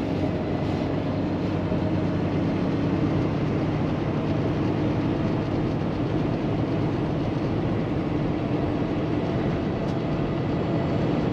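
Inside the cab of a 2016 Kenworth T680 semi truck cruising on the highway: its Paccar MX13 diesel engine drones steadily, mixed with road noise.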